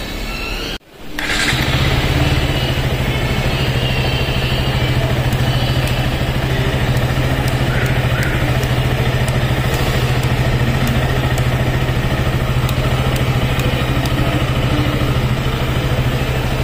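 KTM RC 200's single-cylinder engine idling steadily, coming in about a second in after a brief drop-out.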